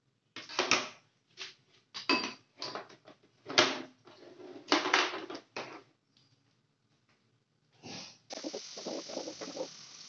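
Pink plastic mesh food covers rattling and knocking as they are handled and set down over plates on a wooden counter, in a run of short clattering bursts. About eight seconds in, a kitchen tap starts running steadily into a steel sink.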